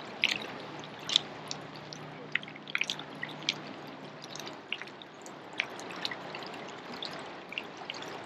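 Willamette River water flowing and trickling, with scattered small splashes and drips standing out now and then.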